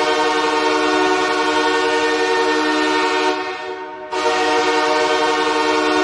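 Los Angeles Kings hockey goal horn blowing a long, steady blast of low held tones, played dry without added reverb. It fades out about three and a half seconds in and sounds again about four seconds in.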